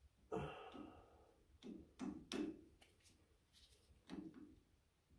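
Faint, scattered clicks and scrapes of a screwdriver turning a hose clamp tight on a rubber fuel line at the tractor's carburetor.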